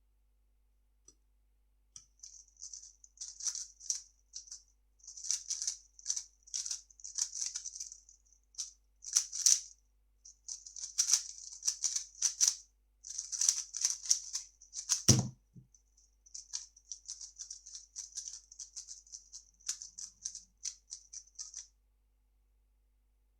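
A 3x3 plastic speedcube being turned fast: rapid clicky clacking of the layers in bursts, with short pauses between them. One dull thump comes about two-thirds of the way through.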